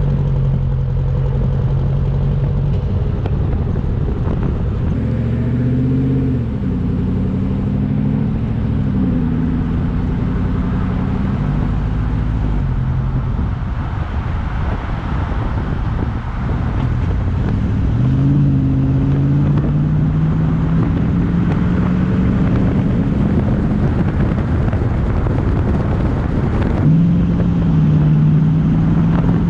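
Chevy Silverado's 5.3-litre V8 running through an MBRP cat-back exhaust while driving. The engine note holds steady, rises and falls a few times, then climbs slowly under acceleration for several seconds and drops at a gear change near the end.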